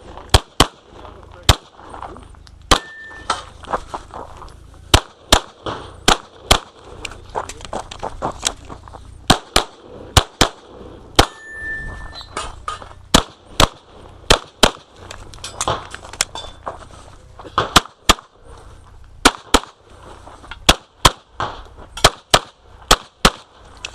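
Glock pistol firing a USPSA course of fire: dozens of sharp shots, mostly in quick pairs and short strings, with brief pauses between strings.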